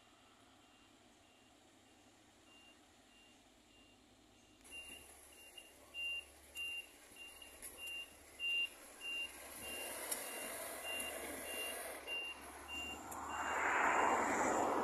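DSG shunting locomotive moving wagons, its movement warning beeper giving a steady series of short high beeps, about two or three a second, from about five seconds in. The diesel engine and wheel noise swell near the end and become the loudest part.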